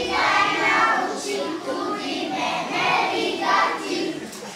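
A group of young children singing together in unison, with the song fading out just before the end.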